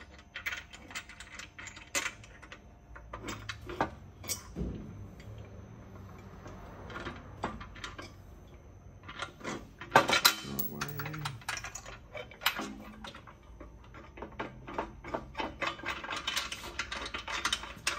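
Metal bolts, washers and nylock nuts clinking and tapping against a metal bike channel as they are fitted by hand, with scattered clicks throughout and a louder burst of metal clatter about ten seconds in.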